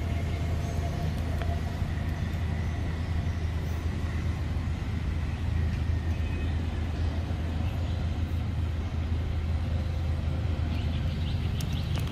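A steady low rumble with no clear pitch that runs unbroken under faint outdoor background sound.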